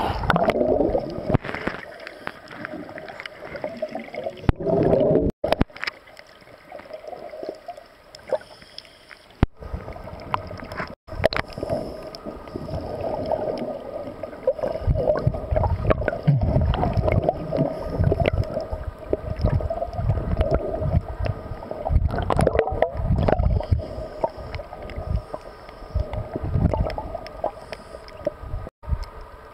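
Underwater sound of scuba divers breathing through their regulators: surges of exhaled bubbles rumbling and gurgling, over a steady hum.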